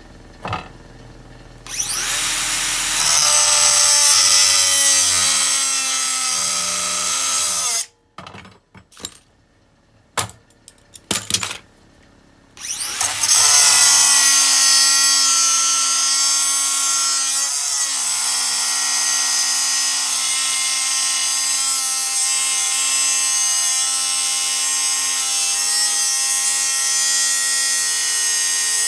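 Electric grinder grinding a small steel bar: a loud steady grinding that runs for about six seconds, stops, and after a few short knocks starts up again and grinds steadily to the end.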